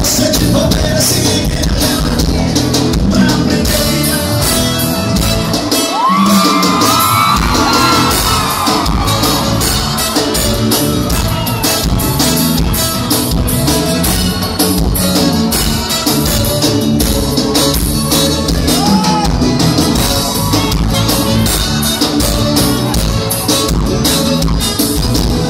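Live forró band playing loud in a hall, with singing and the crowd shouting along. The bass and drums drop out briefly about six seconds in, then come back.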